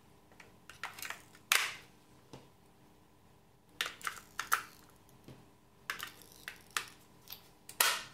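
AA batteries being pressed into the plastic battery compartment of a Hive Active Heating 2 thermostat, with the plastic casing knocking as it is handled: a scattered series of sharp clicks and knocks, the loudest near the end.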